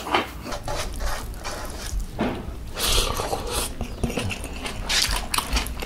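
Close-up chewing and wet mouth sounds of a person eating rice and creamy buttermilk chicken by hand, with irregular smacks that are loudest about two to three seconds in and again near five seconds.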